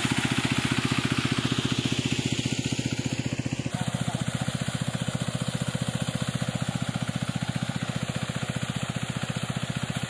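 Small single-cylinder petrol engine of a portable water pump running steadily under load, its firing a rapid even beat, with the rush of water gushing from the 3-inch delivery outlet.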